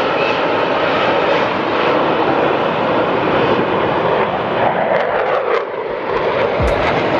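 Airplane engine noise from an aircraft flying over at an airshow: a loud, steady rushing sound, with a couple of low thumps near the end.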